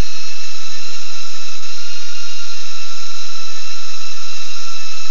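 BetaFPV Aquila16 FPV quadcopter's motors and propellers, a steady high-pitched whine.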